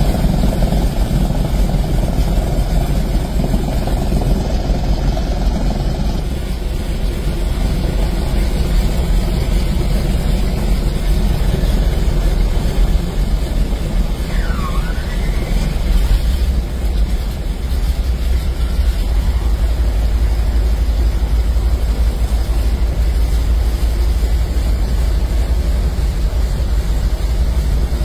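Ford Tri-Motor's radial engines running on the ground, heard from inside the cabin as a loud, steady, low drone.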